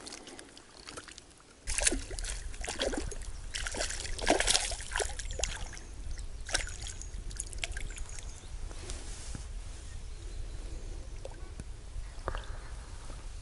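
Water splashing and sloshing at the bank, with a cluster of sharp clicks and splashes in the first half as a small fish on a spinning lure is worked in near the surface, over a steady low rumble.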